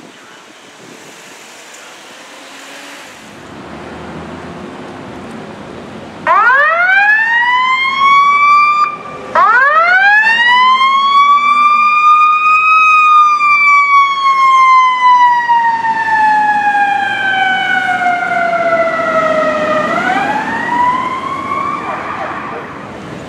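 Fire department vehicle's siren on an emergency response, switched on about six seconds in: a wail that sweeps up, cuts off for a moment, sweeps up again, falls slowly over several seconds, then rises once more.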